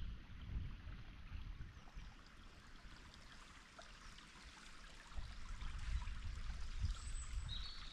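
A forest stream flowing as a steady, even hiss, over an uneven low rumble. A few short high chirps come near the end.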